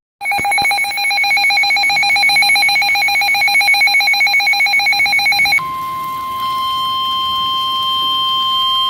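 Weather radio alert: a very fast pulsing electronic beep for about five seconds, then a single steady warning alarm tone near 1 kHz, the NOAA Weather Radio 1050 Hz tone that announces an incoming warning broadcast.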